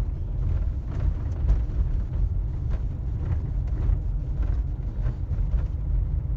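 Car driving over a rough, bumpy mountain road: a steady low rumble of engine and tyres with frequent knocks and rattles from the bumps.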